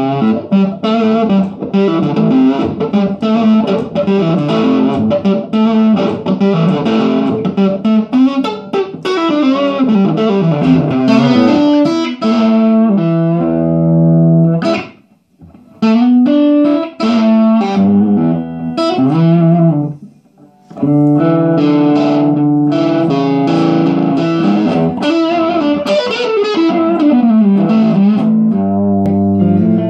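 Electric guitar played through a 6V6-powered 20-watt 1x12 tube combo amp set for a distorted tone: a busy run of lead lines with bent notes, stopping briefly twice near the middle, then more held notes.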